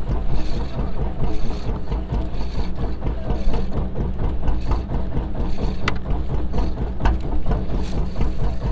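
Fishing boat's engine idling with a steady low hum, under wind and sea noise. Three sharp clicks come in the second half.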